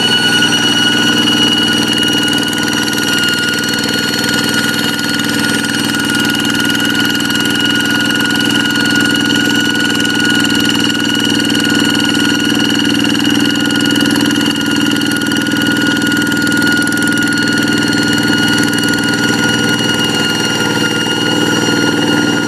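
A Kubota single-cylinder diesel engine on a hand tractor running steadily, with a high, steady whine ("ngiung ngiung") over the engine note.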